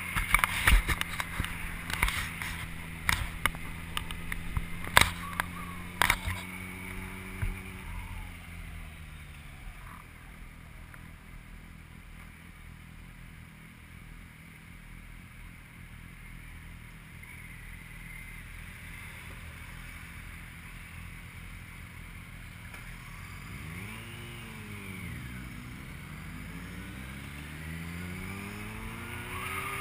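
A vehicle engine running steadily, with a series of sharp knocks over it during the first several seconds. About eight seconds in, its pitch falls and it goes quieter as the vehicle slows. Later the revs rise and fall a few times and then climb near the end as it accelerates.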